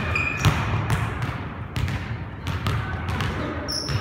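Basketball dribbled on a hardwood gym floor: a series of bounces at an uneven pace, with two brief high squeaks, one near the start and one near the end, from sneakers on the court.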